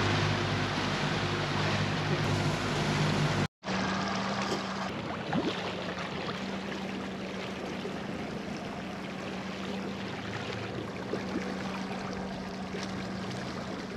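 Outboard-powered boat under way: the motor's steady hum under wind and water rushing. About three and a half seconds in it cuts abruptly to a quieter stretch of the same steady motor hum with water and wind noise.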